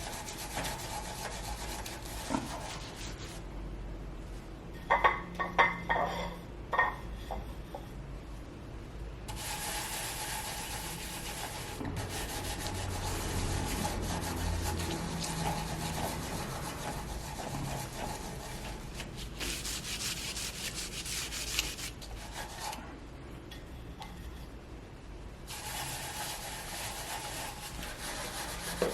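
Lemon and coarse salt being scrubbed by hand against a copper fireplace surface, a gritty rubbing used to strip tarnish. It comes in long stretches with two short breaks; during the first break there are a few sharp knocks.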